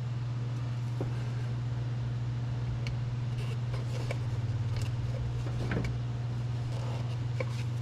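A steady low hum at a fixed pitch, with a few light clicks and taps from hands working on the ignition coil and plug wire in the engine bay.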